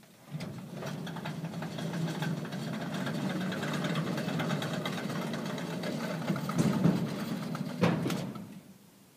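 Honda CR-Z's 1.5-litre four-cylinder engine running through its exhaust, a steady low drone with a few sharp louder moments near the end before it fades away.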